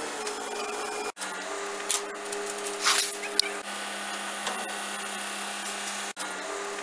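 A steady mechanical hum under a hiss, with a few short bursts of louder hissing. The sound breaks off abruptly about a second in and again near the end, then carries on.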